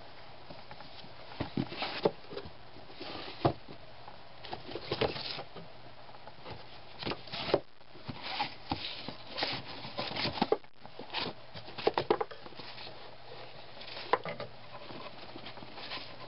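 Old hardback books being tipped and shifted in a wooden rack: irregular taps, knocks and rustles of book covers against each other and the wood.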